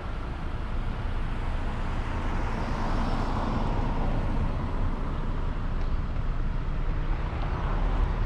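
Steady low road and engine rumble of a car being driven, with a swell of noise about three seconds in.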